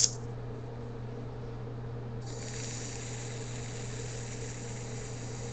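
Draw noise of a GGTS telescopic e-cigarette mod: air hissing through its airflow with a faint high whistle as it is inhaled through, starting about two seconds in and holding steady. A brief sharp click right at the start.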